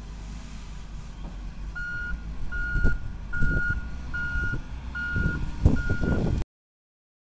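Hitachi ZW220 wheel loader's reversing alarm beeping six times, about one beep every 0.8 seconds starting about two seconds in, over the rumble of its diesel engine as it backs up. A few heavy knocks sound along with the beeps, and all sound cuts off abruptly near the end.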